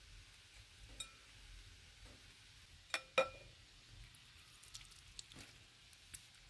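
A steel knife knocking against a glass bowl: a light clink about a second in, then two sharper, ringing clinks close together about three seconds in. A few faint ticks follow.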